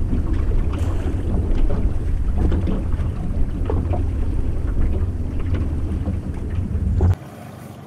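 Wind buffeting an action camera's microphone: a steady low rumble that cuts off suddenly near the end.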